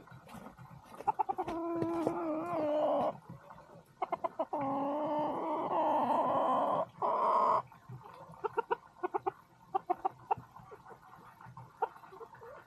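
Farm poultry calling: a few long, drawn-out calls in the first seven seconds or so, mixed with quick runs of short clucks that go on through the rest.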